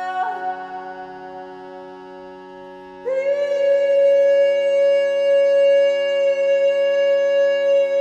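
Meditative healing music: a steady drone chord, with a note that sounds just after the start and fades away, then a long held note coming in loudly about three seconds in.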